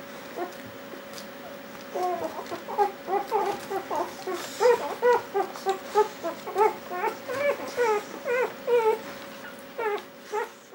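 Two-day-old Dalmatian puppies squeaking and whimpering in short calls that rise and fall, two or three a second, starting about two seconds in and going on to near the end, over a steady faint hum.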